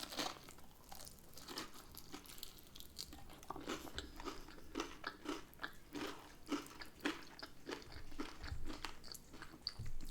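A person chewing and biting into crispy air-fried hot and spicy chicken wings close to the microphone, with a run of irregular crunches, several a second.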